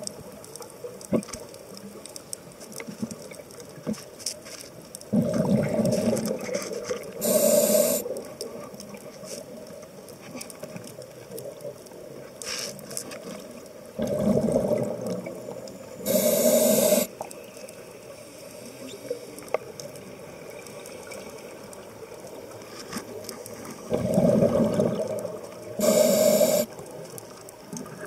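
A scuba diver breathing through a regulator underwater: three breaths about nine seconds apart, each a couple of seconds of bubbling exhalation followed by a short, sharp hiss of inhaled air. Between the breaths there are faint ticks and a low steady hiss.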